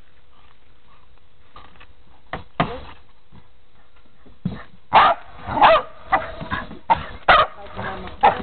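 Dog barking in a quick series of short barks, about two a second, starting about halfway through.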